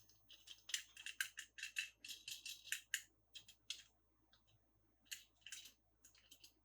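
Toy packaging crinkling and rustling as it is handled, in quick crackly rustles bunched together over the first three seconds, then a few more scattered through the rest.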